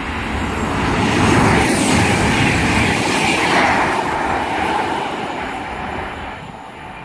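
Virgin Super Voyager, a Class 221 diesel-electric multiple unit, passing through the station at speed: the noise swells to a peak about a second in, holds for a few seconds, then fades away.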